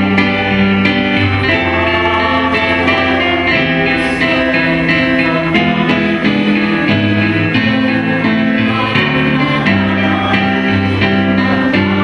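Offertory hymn at Mass: keyboard-led music with held chords over a stepping bass line, with voices singing.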